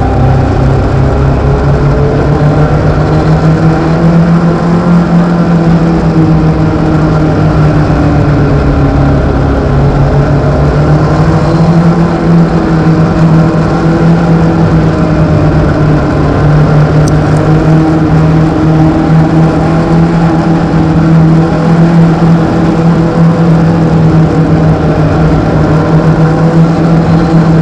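INEX Legends race car's Yamaha four-cylinder motorcycle engine running hard under racing load, heard from inside the cockpit. It is loud and steady, its pitch dipping and rising gently.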